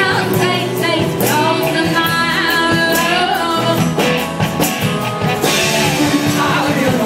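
Rock band playing live, with a singing voice over electric guitar and drums.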